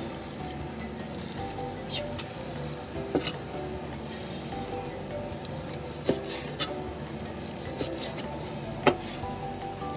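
Kitchen knife slicing raw chicken thighs on a plastic cutting board, with a few sharp knocks as the blade hits the board, over a steady high hiss.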